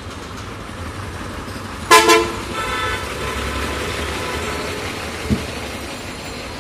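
Tata 3118 covered-van truck's diesel engine and tyres rumbling as it passes close in busy street traffic, swelling for a couple of seconds after the horn. A vehicle horn gives a short double toot about two seconds in, and a brief thump comes near the end.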